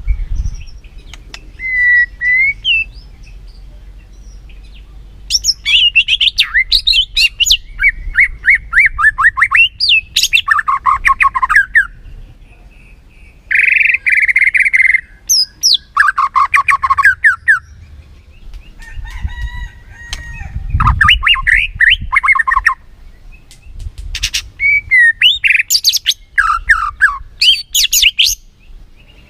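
White-rumped shama (murai batu) singing in loud bursts of rapid trills, chattering runs and whistled notes, with short pauses between phrases. It is a varied song, full of mimicked phrases of other birds.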